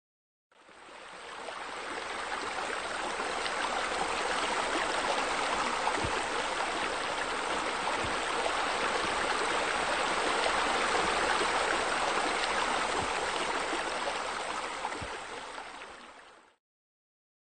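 Running water, a steady rushing and splashing like a pool water feature, fading in about half a second in and fading out near the end.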